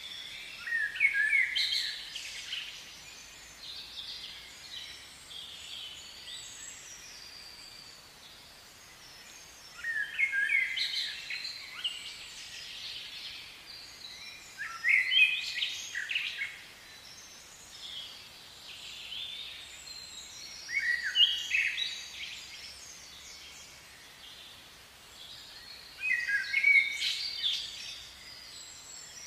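A songbird singing: short phrases of quick, falling high notes, five phrases in all, one every five or six seconds, over faint outdoor background noise.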